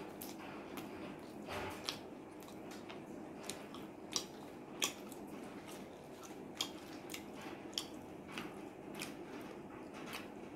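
Close-up mukbang eating sounds: wet chewing and sharp mouth smacks while eating fried chicken and rice by hand, over a steady low hum.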